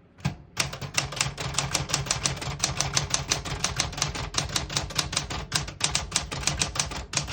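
Steady typing on a 1974 Smith-Corona Classic 12 manual portable typewriter, about six sharp key strikes a second, with a brief pause near the end. The type bars strike cleanly without sticking or skipping.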